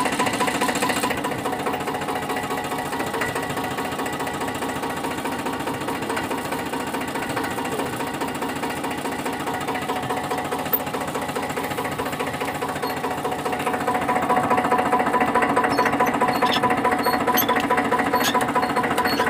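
Stationary engine on a groundnut machine running at a steady speed, an even mechanical drone. It gets louder about two-thirds of the way through, with a few light clicks near the end.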